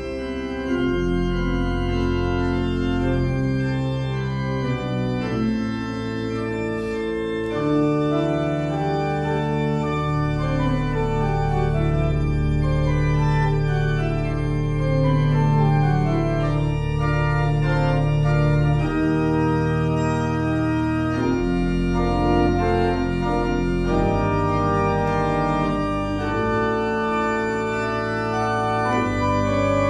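Organ playing slow music in long sustained chords over long held bass notes.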